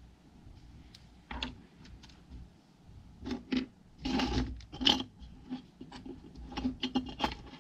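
Handling noise on a wooden desk: scattered clicks, taps and light rubbing as small tools and a glue tube are moved and set down, with the loudest knock about five seconds in and a quick run of clicks near the end.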